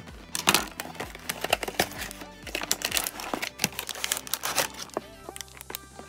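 Crinkling and clicking of a clear plastic blister tray and cardboard box being handled and opened, over background music with held notes.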